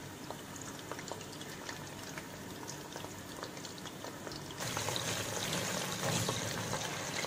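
Batter-coated prawns deep-frying in hot oil: a steady bubbling sizzle with many small crackles, growing louder about two-thirds of the way in.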